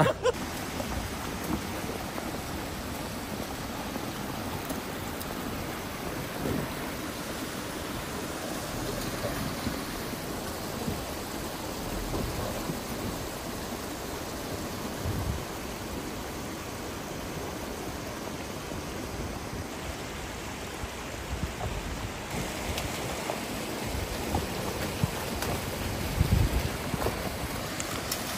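Steady rush of a shallow, rocky mountain stream, with a few dull low thumps now and then.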